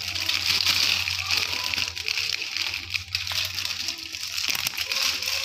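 Clear plastic sheet crinkling and rustling continuously as hands peel a flattened round of maize-flour dough off it, with many small crackles.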